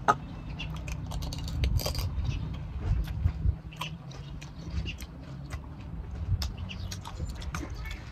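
Crisp pani puri shells crunching as they are bitten and chewed, as a run of short, irregular crackles and clicks over a low, steady hum.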